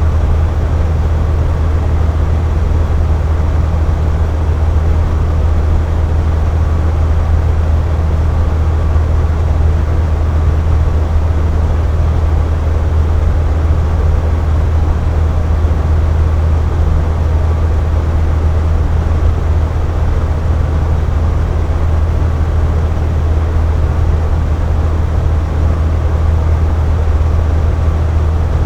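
Air conditioner running steadily: a constant low hum over an even rushing noise, with no change in pitch or level.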